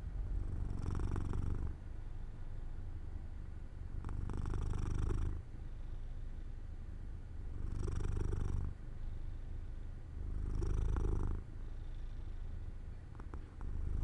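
A domestic cat purring continuously, swelling louder for about a second roughly every three and a half seconds in time with its breathing.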